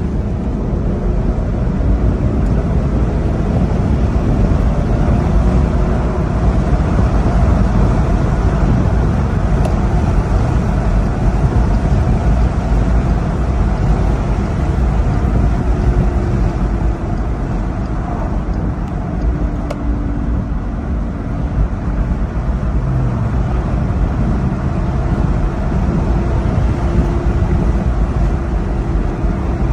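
Steady road and tyre noise with engine hum inside the cabin of a 2016 Jeep Grand Cherokee Limited being driven.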